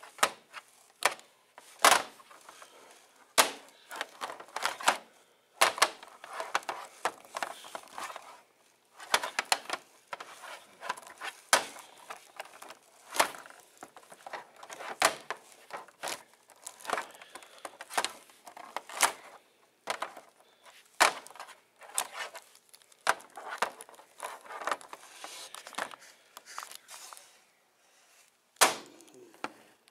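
Hard plastic action figures clacking and knocking together as they are handled, in an irregular run of sharp taps and clatters, with rustling of cloth gloves between the hits.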